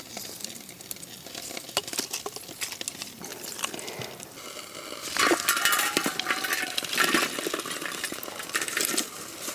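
Wood embers and charcoal clinking and rattling as they are scooped from the fire with a metal ladle and tipped onto a metal plate used as an ember-holding lid. The ladle scrapes louder, with a brief metallic ring, about five seconds in.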